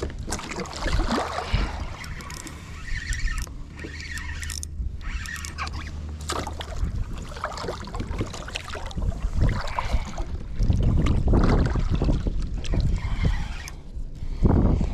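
Wind buffeting the microphone on a kayak, with water splashing and knocking against the hull. It gets louder from about ten seconds in.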